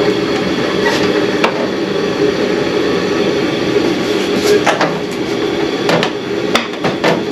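A 1991 Jeep Comanche engine being cranked by the starter and not catching, with a few sharp clicks in the second half. It is a crank-no-start with no spark, caused by a distributor rotor that had broken apart.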